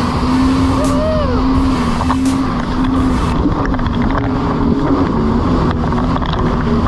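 Jet ski engine running at a steady pitch at cruising speed, heard from the seat of the moving craft, with wind buffeting the microphone.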